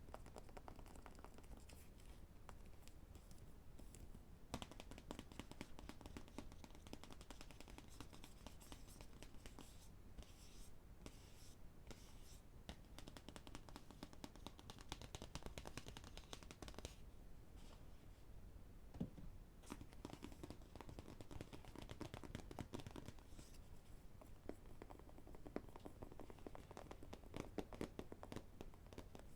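Fingers tapping and scratching on books: many quick, soft taps in close succession, with scratchy rubbing between them.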